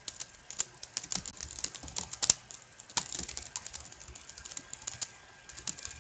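Computer keyboard typing: uneven runs of key clicks, several a second.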